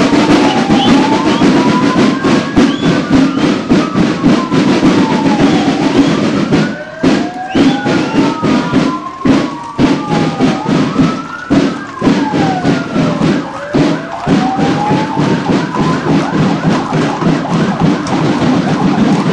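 Emergency-vehicle sirens wailing, at least two at once in slow overlapping rising and falling sweeps that stop a few seconds before the end. Underneath is music with a rapid, steady drumbeat.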